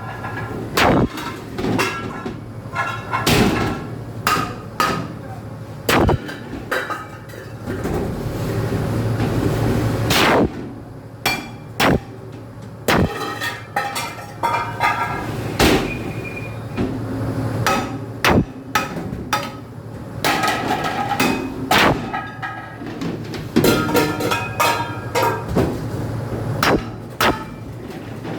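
Repeated loud metallic bangs and clangs at irregular intervals, several a few seconds apart, some leaving a short ringing tone, with a steadier rushing noise for a couple of seconds about a third of the way in.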